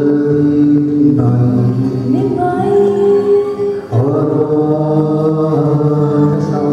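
Live singing with acoustic guitar accompaniment, sung in long held notes that slide between pitches. New phrases start about a second in and again about four seconds in.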